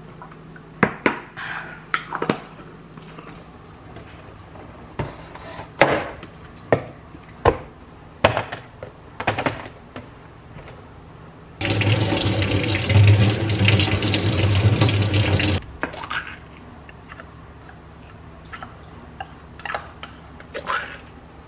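Light clicks and knocks of plastic packaging being handled, then a kitchen tap runs steadily for about four seconds midway through, then stops suddenly. A few more light clicks follow near the end.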